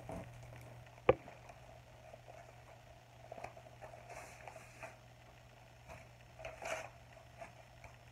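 Handling of a cross-stitch kit's contents: one sharp click about a second in, then scattered soft rustling of plastic packaging and a paper chart, with short louder rustles around the middle and near the end.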